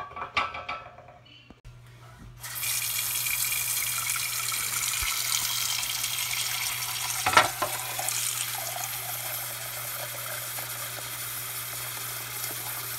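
A few clinks of a metal pot, then a kitchen faucet turned on about two seconds in, its water running steadily into the pot as it fills, with a single knock about seven seconds in.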